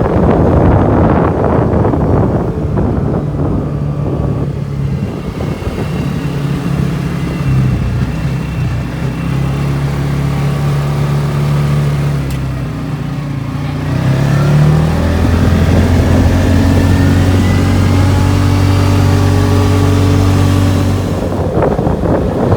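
CFMoto four-wheeler's engine running under way, with a steady note; about two-thirds through the pitch glides up and then settles into a louder, steady drone.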